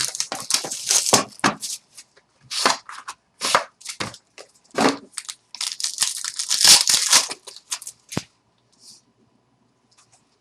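Wrapping being torn and crinkled as a pack of trading cards is opened, in irregular rustling bursts that stop about eight seconds in.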